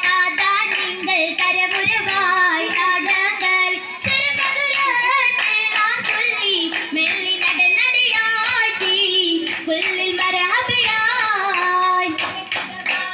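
Girls singing an oppana song in chorus, with the dancers' steady rhythmic hand clapping keeping the beat.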